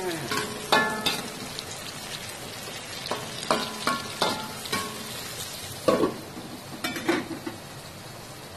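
Chilies, tomatoes and garlic frying in oil in a steel wok, a steady sizzle under repeated ringing clanks and scrapes as a metal spatula stirs against the wok. Near the end a glass lid is set on the wok.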